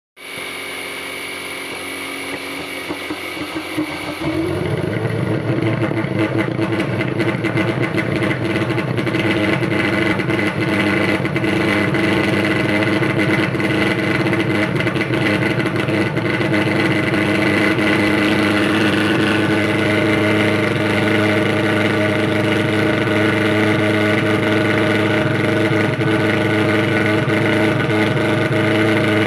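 Thermal fogging machine (pulse-jet mosquito fogger) running with a loud, steady engine drone. It grows louder about four seconds in and then holds steady.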